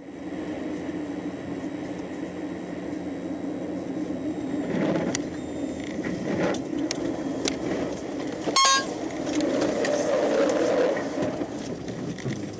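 Steady vehicle running and road noise with a low hum. A few sharp clicks come between about five and seven and a half seconds in, and a brief loud bang or knock follows at about eight and a half seconds.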